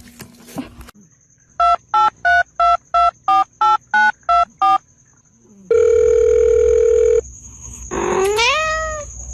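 A phone being dialled: eleven quick keypad beeps in a row, then a steady tone held for about a second and a half. Near the end a cat meows once, its pitch rising and then falling.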